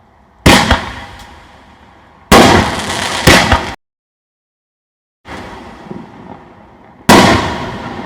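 5-inch aerial firework shells going off: four loud, sharp bangs, about half a second, two, three and seven seconds in, each fading off. The sound drops out completely for about a second and a half in the middle.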